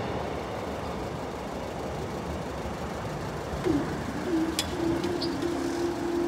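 Steady background rumble. About four seconds in, a level crossing barrier's drive starts with a short gliding tone that settles into a steady hum as the barrier booms rise, with a sharp click shortly after.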